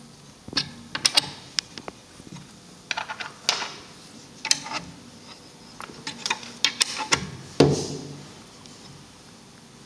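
Brass plugs of a plug-type resistance box being pulled out and pushed back in by hand while setting its resistance: a run of irregular small metallic clicks and taps, with a heavier knock about seven and a half seconds in.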